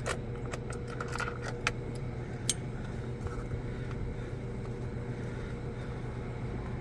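A few sharp metallic clicks and taps in the first couple of seconds, from a T20 Torx bit on a long stack of socket extensions working the screws out of a car console. A steady low hum runs underneath.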